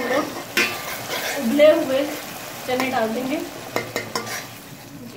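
Metal spoon stirring and scraping a steel pot of onion-tomato masala frying in oil, with the masala sizzling and a few sharp clinks of the spoon against the pot. The masala is at the bhuna stage, fried until the oil separates.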